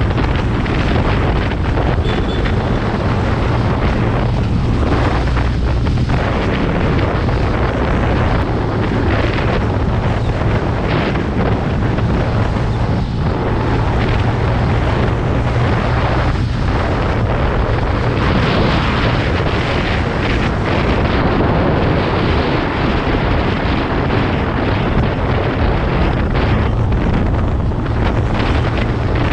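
Wind buffeting the microphone of a motor scooter riding at road speed, with the scooter's engine a steady low hum underneath.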